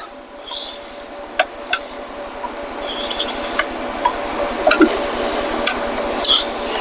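Scattered sharp metallic clicks and taps of hand tools and parts being handled while motorcycle handlebars are fitted, over a steady background hiss.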